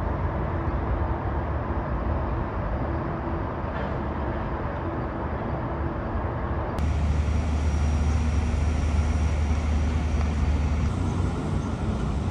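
Steady outdoor traffic rumble and city noise, with a low hum that becomes abruptly louder about seven seconds in.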